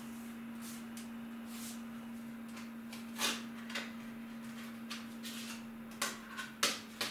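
Sharp plastic clicks and taps of a disc case being handled and opened: one about three seconds in and a quick cluster near the end, over a steady low hum.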